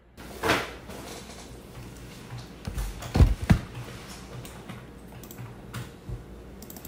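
Objects being handled on an office desk: a short rustle about half a second in, two dull thumps around three seconds in as things are set down, then a few light clicks as hands go to the computer keyboard.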